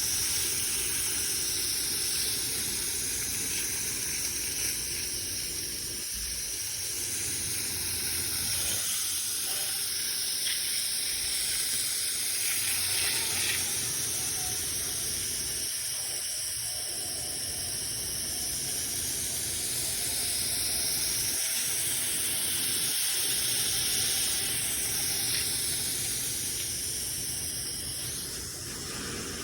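Steady hiss of water spraying from a washing nozzle onto the wood fence, with a low rumble underneath throughout.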